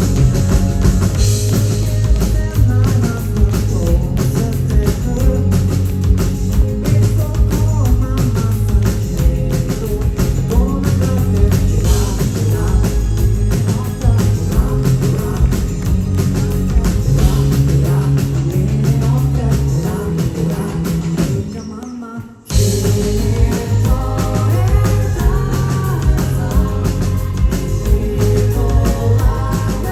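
Live rock band playing loudly: drums, bass and electric guitar with a singer. About two-thirds of the way through, the band cuts out for a moment, then comes straight back in together.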